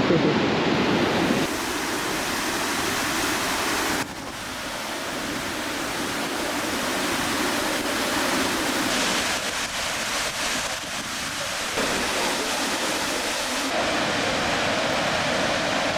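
Gullfoss waterfall's glacial river rushing in a steady, even roar, with abrupt jumps in level about a second and a half in and again about four seconds in.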